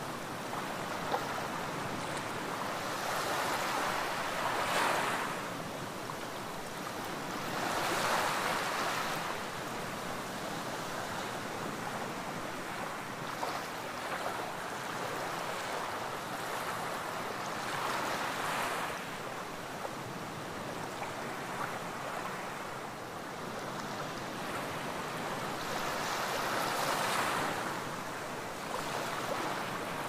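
Small waves lapping and washing up a sandy beach: a steady hiss of surf that swells louder as each wave breaks and runs up the sand, four times in all.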